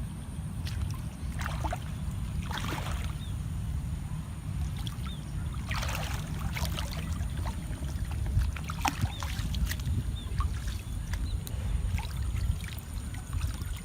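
Water sloshing and splashing in irregular bursts over a steady low rumble.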